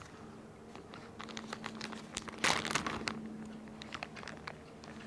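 Faint crinkling and ticking of plastic cigar packaging being handled, with one louder rustle about two and a half seconds in.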